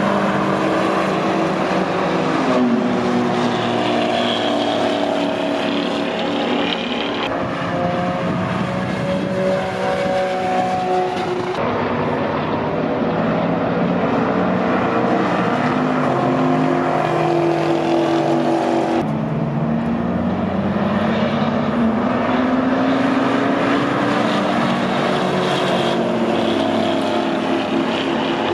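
Several sports cars' engines running at speed around a race track, their pitch rising and falling as they pass. The sound changes abruptly a few times where shots are cut together.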